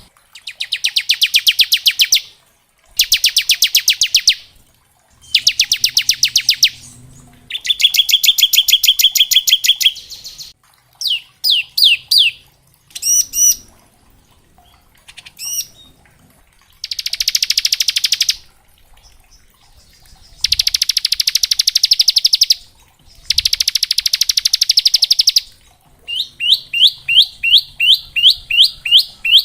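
Bar-winged prinia (ciblek) singing its rapid rattling 'ngebren' trill: repeated bursts of very fast notes, each about two seconds long, with short pauses between them and a few separate sweeping chirps near the middle.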